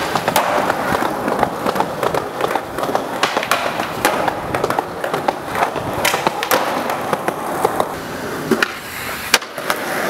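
Skateboard wheels rolling on concrete, broken by many sharp clacks and pops of the board hitting the ground.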